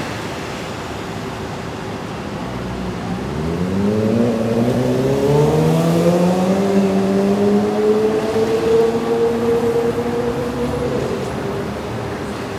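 A motor vehicle's engine pulling away and accelerating over a steady background of city traffic noise: its pitch climbs smoothly for several seconds, loudest in the middle, then levels off and fades as it moves away.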